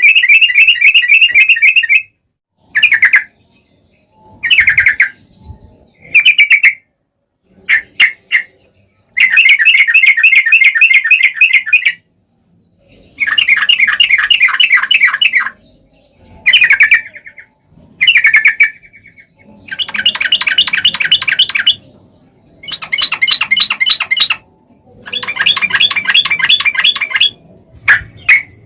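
Yellow-vented bulbul (trucukan) calling in a long series of bursts of fast chattering notes, each burst lasting from a moment to a couple of seconds with short pauses between.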